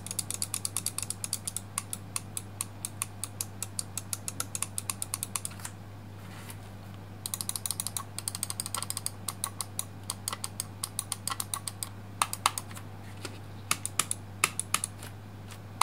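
Gaming mouse buttons clicked rapidly by hand in quick runs of sharp clicks, with a pause of about a second and a half near the middle and sparser clicks near the end. The clicking switches between two mice, a black Cooler Master honeycomb mouse and a white honeycomb mouse, to compare how their buttons click.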